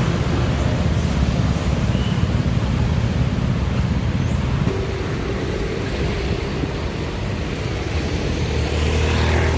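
Steady low rumble of motor-vehicle engines and traffic noise, without any sudden events.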